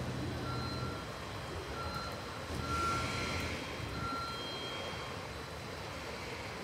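Short electronic beeps repeating about once a second, four in all, over steady railway-station background noise, with a brief hiss swelling and fading about three seconds in.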